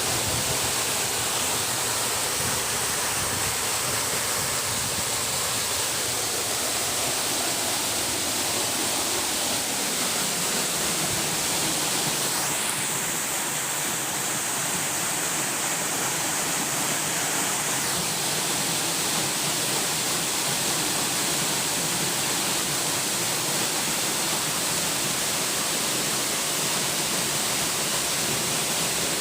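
Waterfall: a steady rush of falling water, which grows brighter and hissier for several seconds about halfway through.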